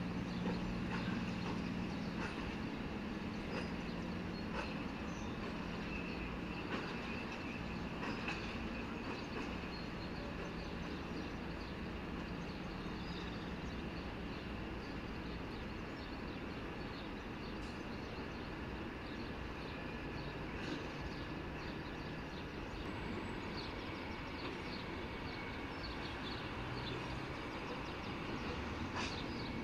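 A rail maintenance machine's engine running steadily as it shunts, with a few faint clicks scattered through.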